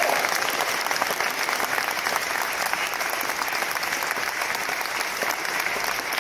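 Large indoor audience clapping steadily, easing slightly in loudness over the seconds.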